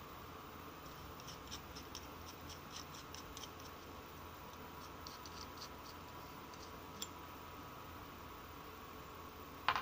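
Faint scratching and light clicking of small metal parts handled in the fingers, an aluminium jig and a steel screw, in scattered runs, with a sharper click near the end over a faint steady hum.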